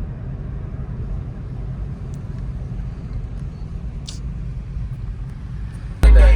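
Road and wind noise of a moving Tesla electric car: a steady low rumble with no engine note. About six seconds in, loud hip-hop music starts suddenly.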